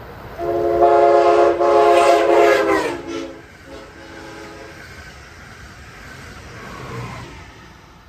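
An Amtrak train's Nathan K5LA five-chime air horn sounding one long chord of about two and a half seconds, dropping in pitch at the end as the train passes. The horn then fades into the rumble of the passing train.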